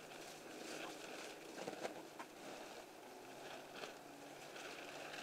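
A flock of chickens feeding on vegetable scraps in straw: faint rustling with scattered small pecking clicks.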